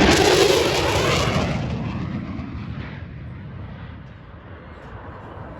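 F-16 fighter jet flying past at high speed, just under the speed of sound: a loud jet roar, loudest at the start and fading away over about three seconds.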